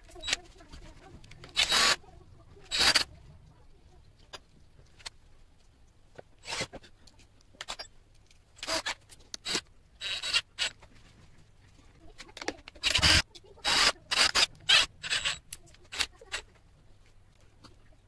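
Cordless drill-driver run in short bursts, about a dozen times, spinning down the terminal nuts on LiFePO4 cell terminals, with light handling of the wires between bursts.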